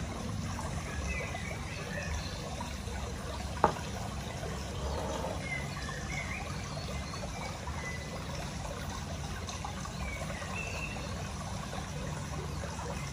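Steady background noise with a low hum, faint short high chirps now and then, and one sharp tap about four seconds in.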